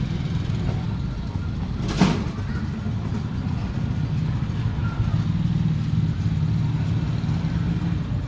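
A steady low engine hum runs throughout, with a single sharp click about two seconds in.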